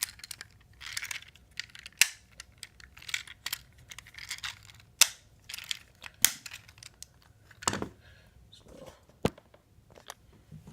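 Hard plastic clicks and snaps from a Transformers Studio Series Ratchet action figure being transformed by hand, its parts tabbing into place, with soft handling and rustling between. There are about six sharp clicks, spread unevenly.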